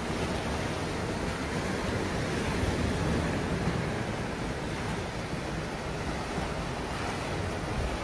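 Sea surf breaking and washing over rocks and a pebble shore: a steady rushing wash of waves.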